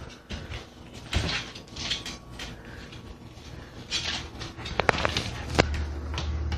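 Scuffling and scattered clicks of a dog's paws and claws on a tile floor as it grapples with a cat, with a few sharper knocks about five seconds in.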